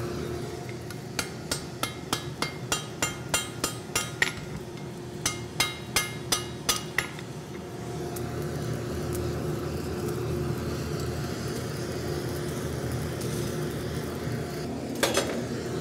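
A hammer striking hot metal on an anvil, about three ringing blows a second for some six seconds with one short pause. The blows give way to the steady rushing hum of the forge, with a few clinks of metal near the end.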